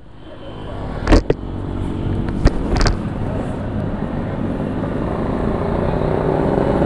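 Motorcycle engine idling steadily, with road traffic swelling over the first couple of seconds. A few sharp knocks come about a second in and again between two and three seconds.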